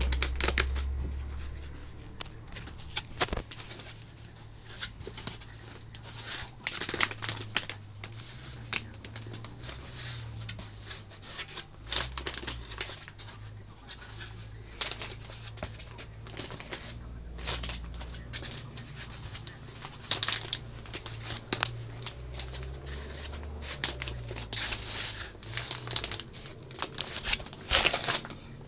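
Polystyrene foam packing blocks squeaking and scraping as they are pulled and worked by hand, with plastic wrap crinkling in short, irregular rustles.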